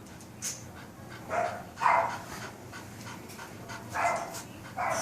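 A dog making four short vocal sounds in two pairs, one pair about a second and a half in and another near the end, during a chiropractic adjustment.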